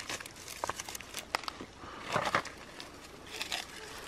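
Dry crinkling and crackling of leaf litter and a woven sack being handled, with scattered sharp clicks and a few short rustles, the longest about two seconds in.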